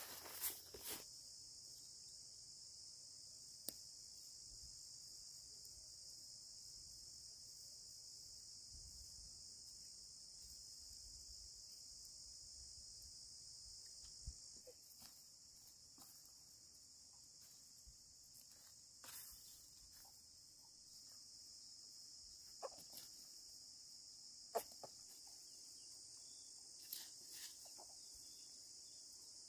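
Faint, steady high-pitched chorus of insects, with a brief rustle of unhusked rice seed pouring into a woven sack in the first second and a few scattered soft taps and knocks later.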